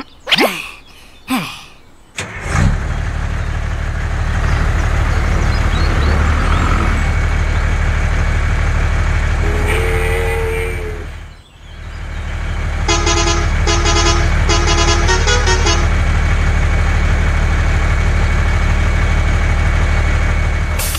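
A low, steady engine drone starts about two seconds in and runs on, fading out and back briefly near the middle. Over it a vehicle horn sounds once, and a few seconds later toots four times in quick succession.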